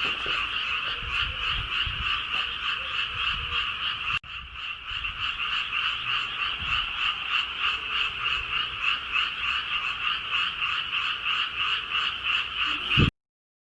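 A dense chorus of many frogs calling together, a steady mass of rapid pulsing croaks. It breaks off for an instant about four seconds in, then stops abruptly near the end.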